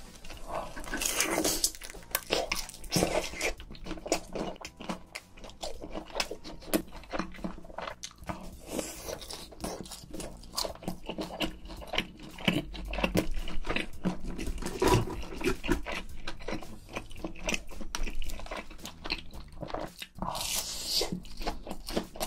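Close-miked biting and chewing of a crisp deep-fried shrimp patty (shrimp twigim): repeated dry crunches as the fried batter breaks, with a fresh crunchy bite near the end.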